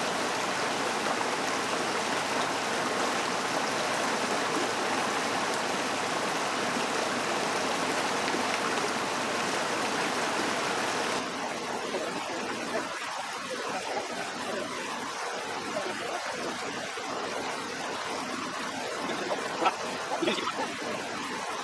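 Creek water rushing over rocks, a steady rush. About eleven seconds in it turns abruptly thinner and patchier, and a couple of light clicks come near the end.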